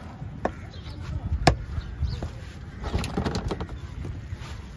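Cleaver chopping pieces of stingray on a wooden log chopping block: a few sharp chops, the loudest about a second and a half in, and a quicker run of strikes around three seconds in.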